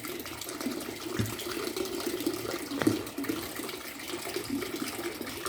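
Water trickling and gurgling steadily in small bubbly splashes, with one sharp click about three seconds in.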